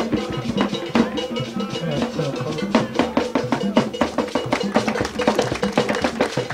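Music led by drums and percussion, with many quick drum strokes over steady held notes.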